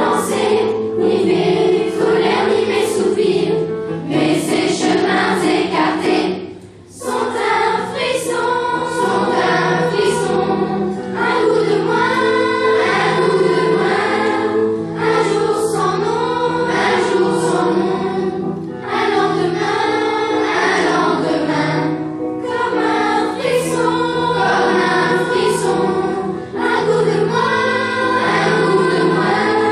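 A choir of middle-school children singing together in French, with a short break in the singing about seven seconds in.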